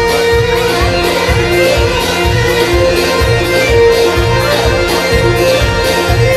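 Band playing upbeat dance music: a steady, even drum beat under a sustained melody line.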